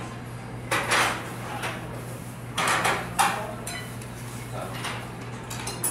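Long metal spoon scraping and clinking in a stainless steel soup bowl, with two short noisy bursts and a sharp clink about three seconds in, over a steady low hum.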